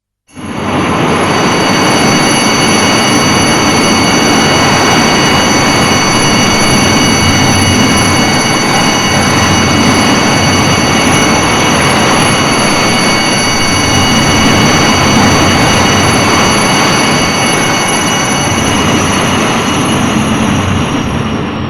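Designed Rodan monster sound effect from the 2019 Monsterverse: a long, loud, continuous rushing roar with several steady high whistling tones over it. It starts abruptly and fades out at the end.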